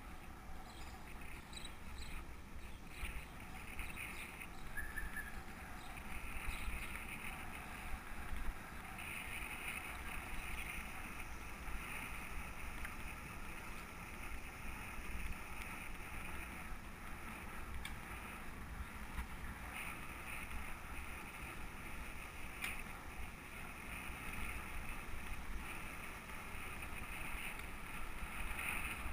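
Wind buffeting the microphone of a moving bicycle, with a steady rumble of tyres rolling on asphalt; the noise swells and eases a few times as the ride goes on.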